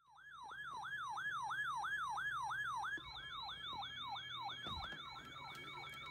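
Electronic siren on a fast yelp, its pitch falling again and again about three times a second. It drops in level about three seconds in, and a steady tone comes in alongside it.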